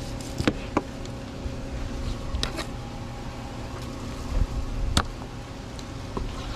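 Fillet knife working through raw sailfish on a plastic fillet board: sharp clicks of the blade against the board, the loudest about five seconds in, over a steady low hum.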